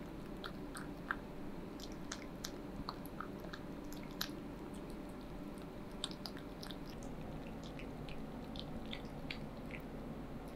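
Ragdoll cat eating chunks of wet cat food from a glass bowl: soft chewing and licking with scattered small sharp clicks.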